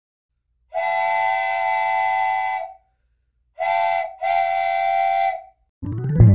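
A whistle sounding three times, each blast a steady chord of several pitches: a long blast of about two seconds, then a short one and a longer one. Near the end music starts with a rising sweep.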